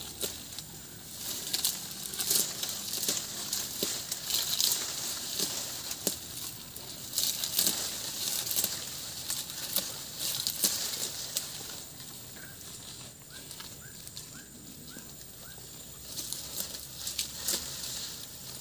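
A cow grazing in dense undergrowth: crackly tearing and rustling of grass and palm fronds as it bites and pulls at the leaves, in bursts with quieter spells between.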